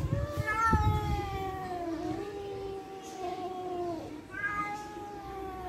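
Cat meowing in two long, drawn-out calls, each sliding slowly down in pitch; the first lasts about three and a half seconds and the second begins near the end. Begging meows of a hungry cat waiting to be fed.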